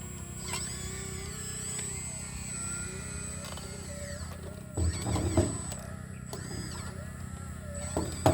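Sumitomo SH120A3 excavator's diesel engine running steadily, with a faint wavering hydraulic whine above it. It gets louder in short bursts about five seconds in and again near the end as the machine works.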